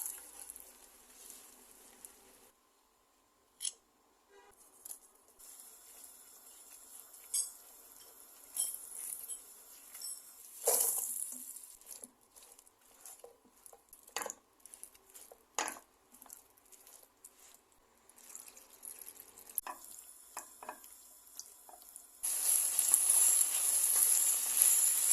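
Kitchen cooking sounds: food sizzling in a frying pan, a quiet stretch of scattered clinks and knocks of utensils against pans and bowls, then loud sizzling again near the end.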